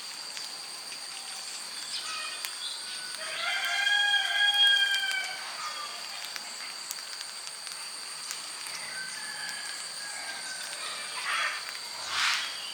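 Birds calling, with one long drawn-out call about four seconds in and shorter calls later, over a steady high-pitched hum.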